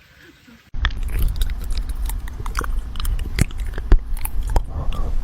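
A cat crunching and chewing close to the microphone: a dense, irregular run of sharp crunches that starts suddenly less than a second in.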